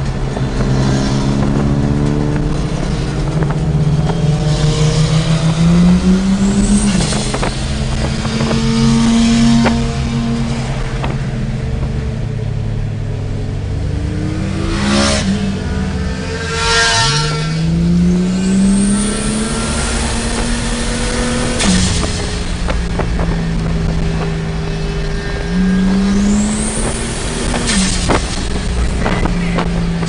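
Ford Falcon XR6 Turbo's turbocharged 4.0-litre inline-six, built to about 400 kW at the wheels, accelerating hard on boost through the gears, heard from inside the cabin. The engine note rises in pitch on each pull and drops back at the gear changes, with a rising turbo whistle and sharp hisses between pulls.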